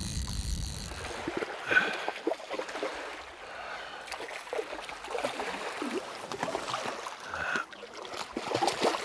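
A hooked Arctic char thrashing and splashing in shallow river water as it is reeled in, heard as irregular splashes and sloshes, with one louder splash about two seconds in.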